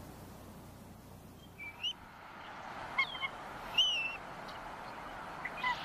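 Bald eagles at the nest giving short, high chirping calls, some bending up or down in pitch, in four brief clusters over a steady rushing background.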